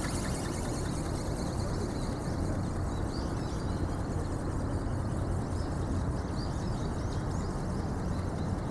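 Steady low rumbling outdoor background noise that does not change, with a few faint high chirps now and then.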